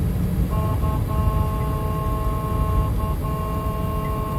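A vehicle horn held for several seconds, starting about half a second in and broken twice by short gaps, over the steady engine and road rumble of a moving pickup heard from inside the cab.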